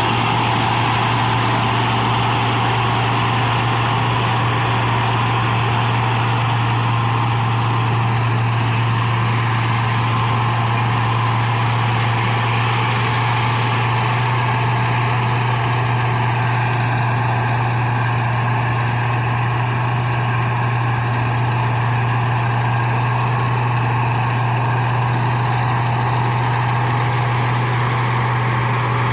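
Rice harvesting machine's engine running steadily, a constant low drone that does not change in pitch or level.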